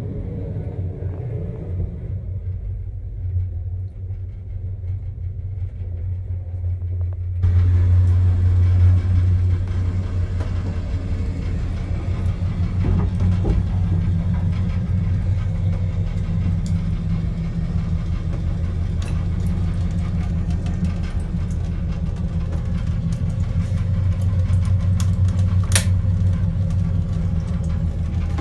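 Steady low rumble and hum of a running train, heard inside its toilet cubicle. About a quarter of the way in, a steady hiss of water from the washbasin tap starts suddenly over hands being washed, with a few faint clicks later.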